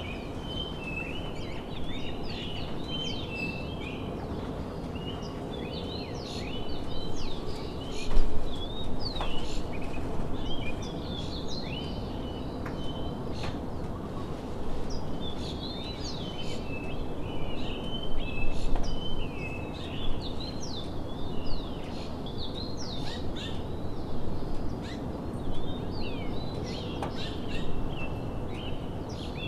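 Many small birds chirping and calling at once, a dense chorus of short high chirps and trills over a steady low background rush of outdoor noise, growing louder in places.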